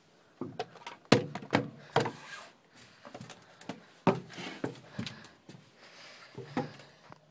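A string of irregular knocks and thumps, the loudest just after a second in and again about four seconds in.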